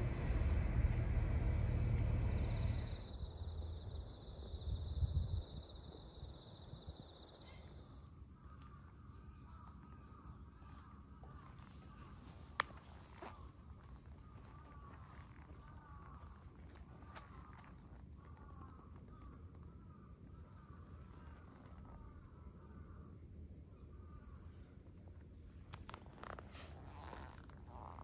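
Insects singing in a steady, high-pitched drone, with a low rumble in the first few seconds.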